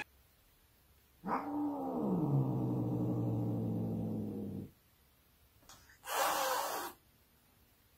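Domestic cat giving one long, low growling yowl of about three seconds that starts with a short higher cry and drops to a steady low pitch, then a short hiss about six seconds in: the warning sounds of a cat being pestered by another cat's paw.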